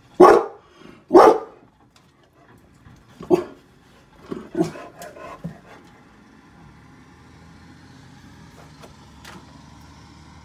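A dog barks, two loud barks about a second apart, then a few more scattered barks over the next few seconds. Behind them a garbage truck's engine runs low and steady as the truck pulls away.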